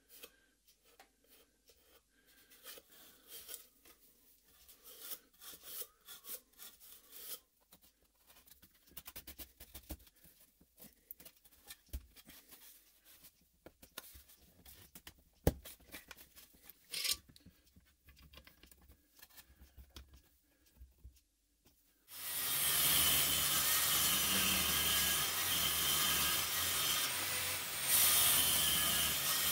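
Thin wooden divider panels scraping, rubbing and lightly knocking as they are slid and pressed into place inside a small wooden box, with a few sharp clicks. About 22 seconds in, a Bosch table saw starts suddenly and runs steadily and loudly, with a brief rise near the end.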